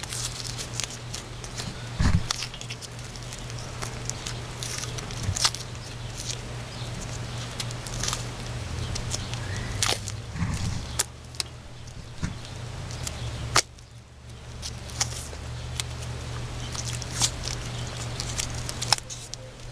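Scattered clicks, taps and rustling of hands working on parts under a truck, over a steady low hum.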